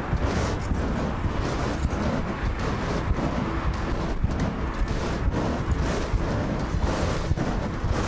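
Wind buffeting the microphone of a camera carried by a rider on a moving bicycle: a steady low rush of noise broken by many short crackles.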